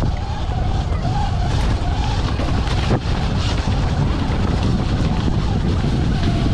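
Sur-Ron electric dirt bike riding up a rough trail: a faint electric motor whine rises and falls with the throttle over a heavy, steady low rumble from the ride.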